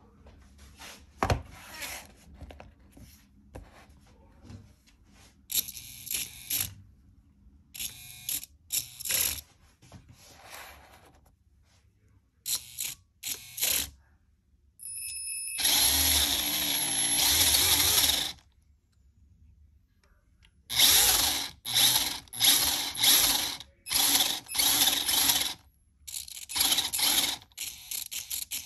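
Kyosho Mini-Z Buggy RC car's small electric motor whirring in repeated short bursts of throttle, its wheels spinning free with the chassis propped up off the table. There is one longer run of about three seconds midway, and a quick string of bursts near the end.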